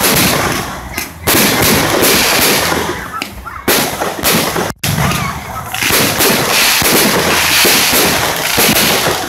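Fireworks going off close by: a dense, loud barrage of aerial shell bursts and crackling sparks, near-continuous, breaking off for an instant about halfway.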